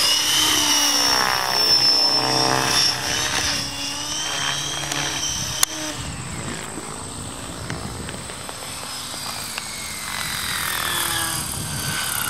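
AHF Aeolus 600 electric RC helicopter in flight: its brushless motor and rotor blades whine, the pitch rising and falling as it manoeuvres and passes. A single sharp click about five and a half seconds in.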